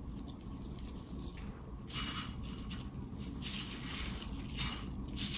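Rubber-gloved hands patting a croquette in panko breadcrumbs, the crumbs rustling and crunching in repeated strokes from about two seconds in. Before that, the patty squishes softly in beaten egg.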